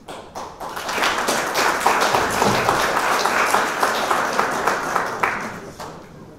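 Audience applauding, a dense patter of many hands clapping that swells about a second in and dies away near the end.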